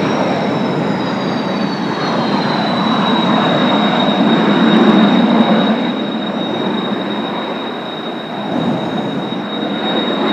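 Kawasaki T-4 jet trainers' turbofan engines running on the ground: a high whine that glides down over the first few seconds and then holds steady, over a broad rushing noise.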